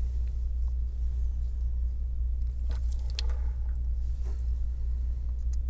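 A steady low hum, with a few faint clicks of small parts being handled by gloved fingers inside an opened iPhone 7 about halfway through.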